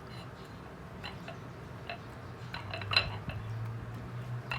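Metal fork clinking and scraping against a plate while peeling and pressing boiled eggplant: a few scattered light clicks, the loudest about three seconds in.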